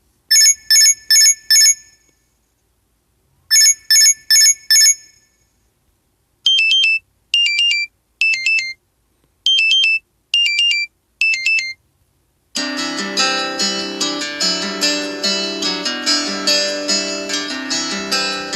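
LG V20 phone alarm tones playing. First come two groups of four fast, high electronic beeps, then six groups of paired beeps falling in pitch. About twelve and a half seconds in, a plucked-string melody with a steady accompaniment starts.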